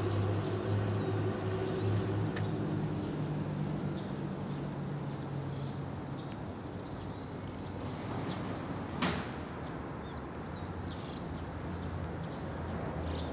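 Outdoor ambience: a steady low hum over a noisy background, with scattered faint short high ticks and one sharp click about nine seconds in.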